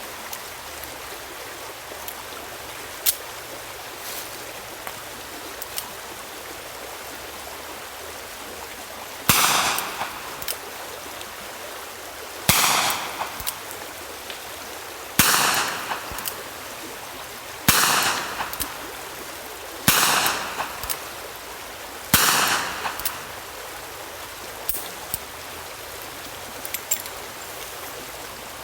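Ruger Redhawk .45 revolver with a 4-inch barrel fired six times, about two to three seconds apart, each shot trailing off in an echo. A few faint clicks come before the first shot, over a steady rushing background noise.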